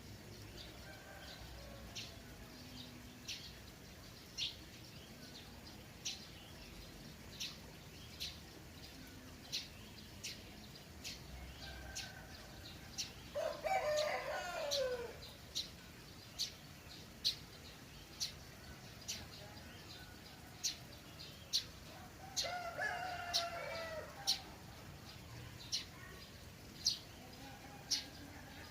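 A rooster crowing twice, loudly about 13 seconds in and more faintly about 22 seconds in, while a small bird gives a short, sharp chirp about once a second throughout. A faint steady trickle of water runs underneath.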